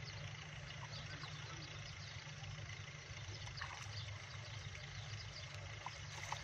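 Faint sloshing and trickling of shallow canal water as a man wades and gropes in it by hand for tilapia, over a steady low rumble, with a few small ticks near the end.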